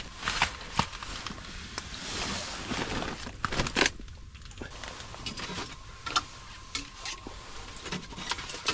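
Scattered light clicks and knocks of ice-fishing gear being handled. A faint steady high tone comes in about two-thirds of the way through.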